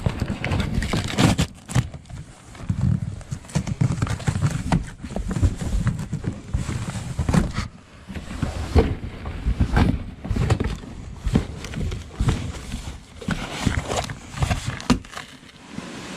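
Irregular knocks, thumps and rustling of a child scrambling and rolling around inside a large shipping box.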